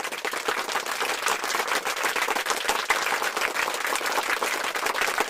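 A crowd applauding: dense, steady clapping.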